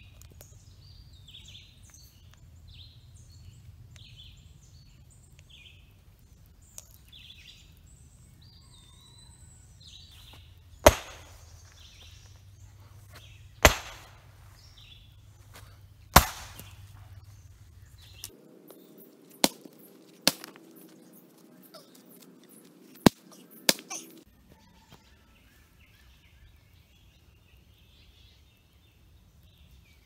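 Heavy hammer blows striking a large stone to break it up: seven sharp cracks, the first three a couple of seconds apart, then two quick pairs. Birds chirp faintly in the first seconds.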